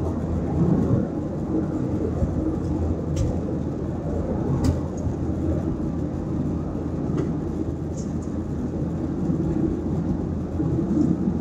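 Steady low rumble of a Ryanair Boeing 737's jet engines and airflow heard inside the passenger cabin in flight, with a few faint ticks.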